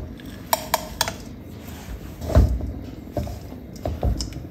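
Two ringing clinks against a steel kadai as crushed peanuts are tipped in from a glass bowl, then the dull scrapes and knocks of a steel spatula stirring a thick jaggery and sesame mixture in the pan.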